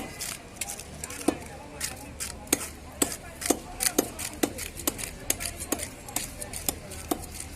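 Blade chopping through a large bhetki (Asian sea bass), a steady run of sharp strikes about two a second.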